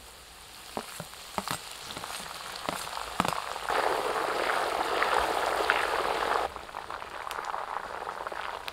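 Sliced onions and curry leaves deep-frying in hot oil: a steady sizzle as the onions fry until crisp. A metal slotted spoon clicks against the pan a few times in the first three seconds. The sizzle grows louder for a few seconds in the middle.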